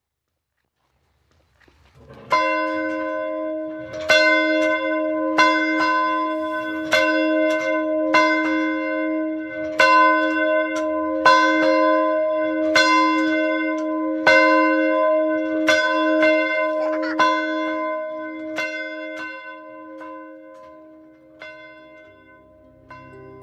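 A single church bell tolling, struck about every second and a half and ringing on between strikes, starting about two seconds in and fading away near the end.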